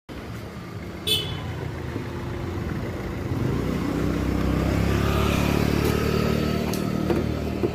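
A motor vehicle's engine running, a steady low rumble that grows louder a little after the middle and holds there. A short, sharp high chirp sounds about a second in.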